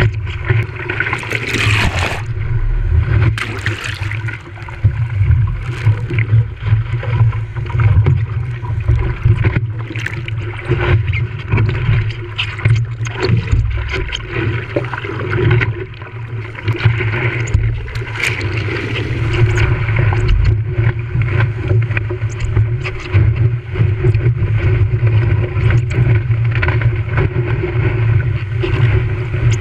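Strong onshore wind buffeting the camera microphone with a heavy rumble, over water splashing and gurgling around the paddleboard.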